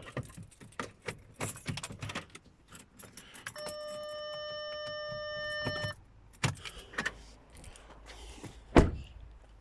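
Car keys jangling and clicking, then the Audi A4 B8's electronic warning chime holding one steady tone for about two seconds. A single loud thump comes near the end.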